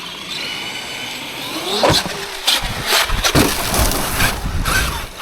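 Traxxas X-Maxx 8S electric RC monster truck driving. A thin high motor whine comes first, then a rising whine about two seconds in, followed by heavy rumbling and knocks from the truck running over the ground.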